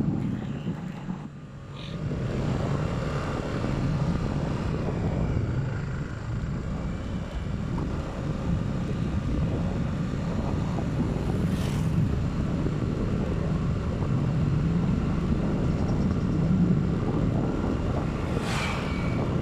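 Steady low engine and road rumble of a moving vehicle, heard from on board. The sound dips briefly about a second in, and two short hissing whooshes rise and fade, one around twelve seconds and one near the end.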